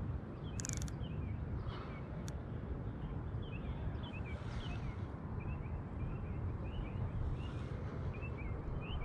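Small birds chirping, many short high chirps over a steady low rumble outdoors, with a couple of brief clicks in the first few seconds.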